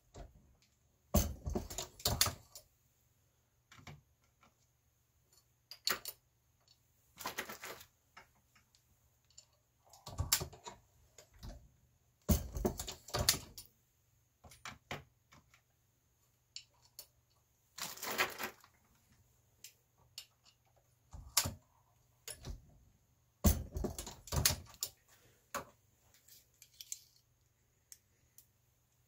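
Reloading press worked by hand to seat bullets in 300 Blackout cases: irregular bursts of metallic clicks and clacks from the press handle, ram and shell plate and from cartridges being handled, with short quiet gaps between them.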